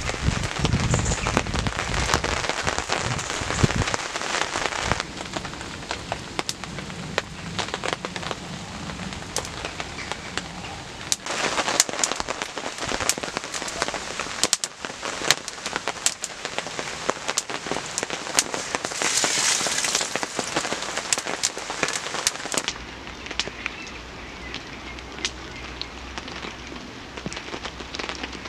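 Steady rain pattering, dotted all through with sharp crackles and pops from a freshly lit fire of feathersticks and split kindling. Louder close handling sounds come over the first few seconds.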